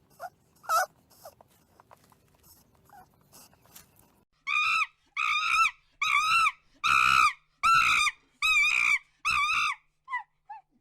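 Faint scratching and clicking, then an animal gives seven loud, high calls in a row, each about half a second long with a wavering pitch, followed by a few short falling chirps near the end.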